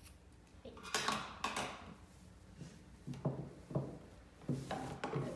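Scissors snipping through the tied end of a warp and being set down on a table, then a few dull knocks and a brief rustle as the warp threads are gathered on a wooden tabletop loom. Two sharp clicks come about a second in, the duller knocks near the middle.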